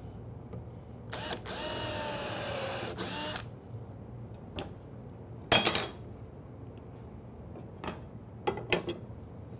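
Cordless drill/driver running for about two seconds as it drives a screw through a drawer slide into a wooden drawer box, its motor pitch wavering. Then a sharp knock about halfway through and a few lighter clicks near the end as the parts are handled.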